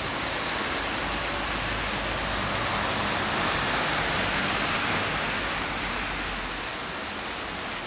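Steady rushing outdoor noise with no distinct events, swelling a little in the middle and easing off near the end.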